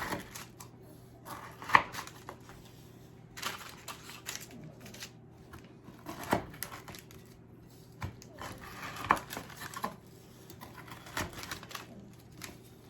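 Irregular knocks, taps and clicks of kitchen work on a counter, typical of a knife cutting a set candy slab into pieces, over a low steady hum.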